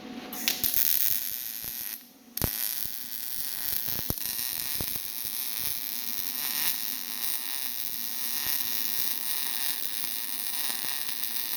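MIG welding arc on mild steel crackling and buzzing steadily, dense with sharp little clicks. It breaks off briefly about two seconds in, then the arc strikes again and runs on.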